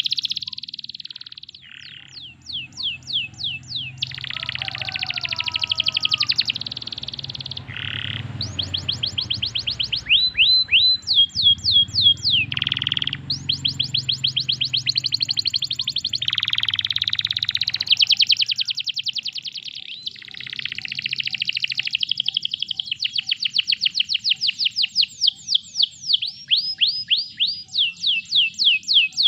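Domestic canary singing a long, continuous song of rapid trills: runs of quick rising chirps, about eight a second, with the phrase changing every few seconds.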